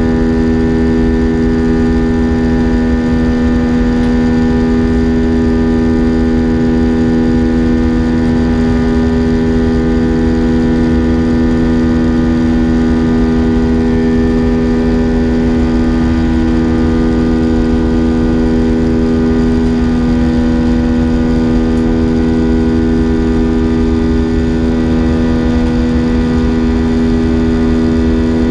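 Cabin sound of an Airbus A320-232 in flight after take-off: its IAE V2500 turbofan engines running steadily, a constant hum with a strong low tone and several higher steady tones over the rush of air along the fuselage.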